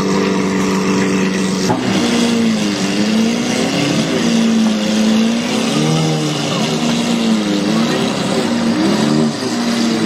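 Lamborghini Murciélago V12 idling steadily, then from about two seconds in blipped on the throttle several times, the revs swooping up and falling back.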